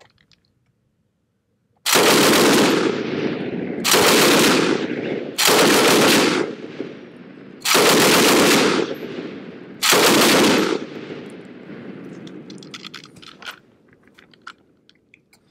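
Savage-made Lewis light machine gun in .303 British firing five short bursts of automatic fire, each about a second long, with the report echoing after each burst. A few faint clicks near the end.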